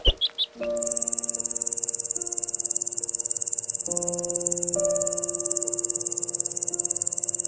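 Insect trilling: a rapid, very even, high-pitched stridulation like a cricket's, starting about half a second in, over soft background music. A chick peeps briefly at the very start.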